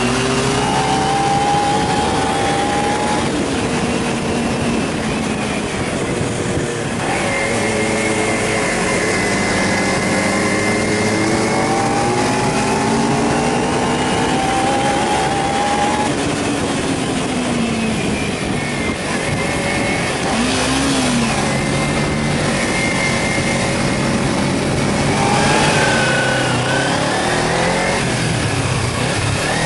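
Kawasaki Ninja 250's parallel-twin engine under way, its pitch rising and falling as the rider accelerates, shifts gears and rolls off through the bends, over a steady rush of wind on the microphone.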